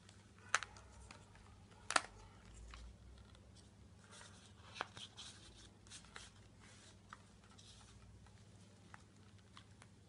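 Paper handling on a handmade scrapbook mini album: rustling and light crackling as pages are turned and tags pulled out, with scattered sharp ticks, the loudest about half a second and two seconds in. A faint low hum runs underneath.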